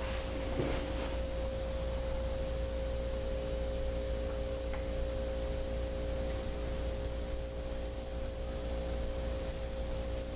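Steady background hum: one held mid-pitched tone over a low drone, unchanging throughout. A brief soft rustle comes about half a second in.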